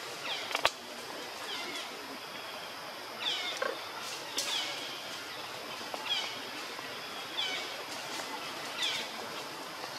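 Newborn macaque's short, high-pitched squeaks, each falling in pitch, repeated about once a second. A single sharp click about half a second in.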